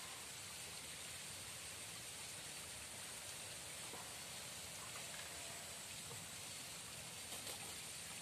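Steady, even rush of a small river's flowing water, with a few faint ticks.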